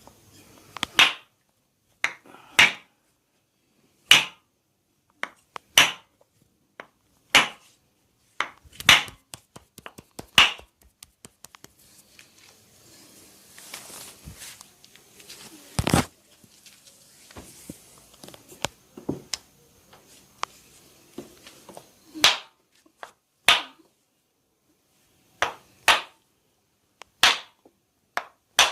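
Sharp slaps of hands striking the body in a percussive barber massage, about one every second and a half, with quieter rubbing and quick light taps between them in the middle.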